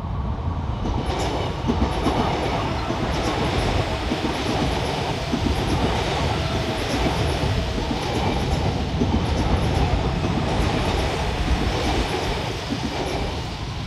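Seoul Subway Line 3 electric train passing close by: a steady rumble of wheels on rails with a regular clatter of clicks, building about a second in and easing off near the end.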